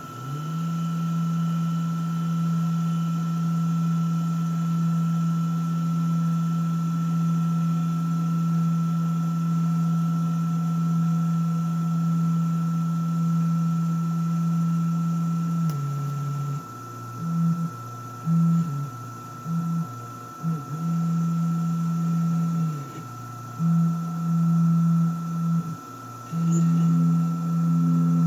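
Rownd desktop CNC mill running: a steady high whine throughout under a loud low motor hum. About halfway through, the low hum breaks into short, irregular starts and stops, like the axis motors making a series of short moves.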